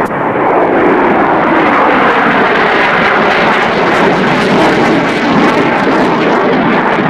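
Loud, steady jet roar of a Panavia Tornado GR1's twin RB199 turbofans as the jet flies its display.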